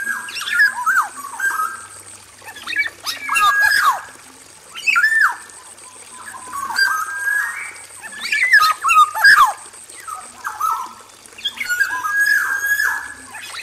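Male black-naped oriole singing: bursts of whistled and harsher notes, many sliding down in pitch, delivered in short phrases every second or two.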